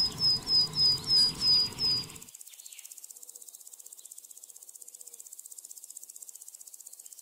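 Repeated short, high chirps falling slightly in pitch, about three a second, over a low background. Both stop about two seconds in, leaving a faint, steady, fast-pulsing insect-like trill, as of crickets.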